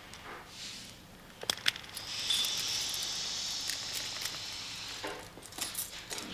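Metal handcuffs being unlocked and taken off a wrist: two sharp metal clicks about a second and a half in, then a few seconds of high, rasping metal as the cuff is worked open and slid off.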